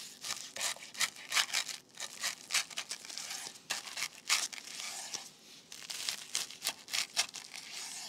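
A kitchen knife slicing through the crisp panko crust of a freshly deep-fried salmon katsu: a run of sharp, irregular crunches as the blade cuts down through the breading.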